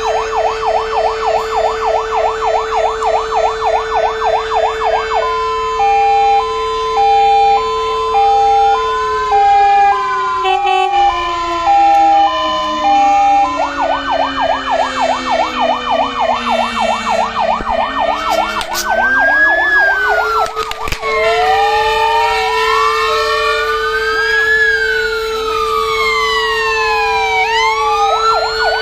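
Fire engine electronic sirens switching through their patterns: a fast yelp, then a two-tone hi-lo, the yelp again, then slow overlapping wails. A steady lower tone runs underneath, sagging and gliding down in pitch in the middle before coming back.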